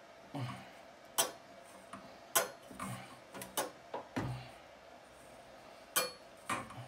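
About ten irregular clicks and knocks from handling a flexible corrugated metal exhaust pipe while fitting it to a diesel air heater.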